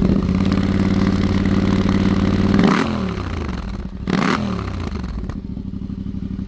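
2025 Yamaha Tenere 700's parallel-twin engine running through a Dominator high-mount slip-on exhaust. It idles, is blipped twice about a second and a half apart near the middle, and drops back to idle after each rev.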